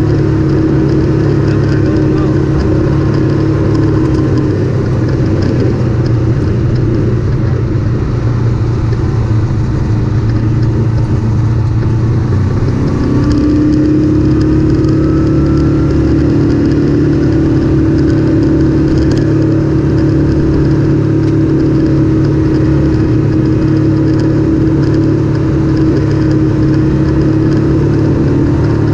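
Off-road vehicle's engine running under way on a gravel trail, with steady tyre and wind noise. The engine speed sags slightly around four seconds in, picks up around thirteen seconds in, and then holds steady.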